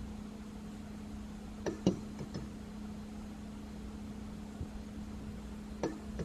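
A few light clicks and taps from handling food and utensils while a burger is assembled, over a steady electrical hum from a kitchen appliance.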